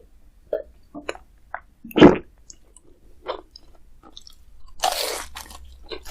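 Close-miked eating sounds: crisp bites and chewing of crunchy food, as separate crunches with the loudest about two seconds in. A brief noisy rush follows near the end.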